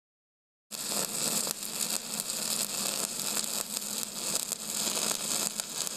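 Steady crackling hiss with a faint low hum underneath, starting abruptly under a second in.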